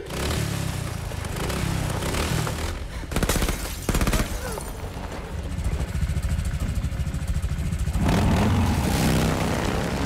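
Motorcycle-and-sidecar engine running with a fast low throb, growing louder about eight seconds in. Two brief sharp noises break in about three and four seconds in.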